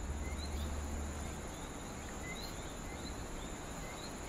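Night-time tropical forest ambience: a steady high insect trill with short chirps repeating about once a second.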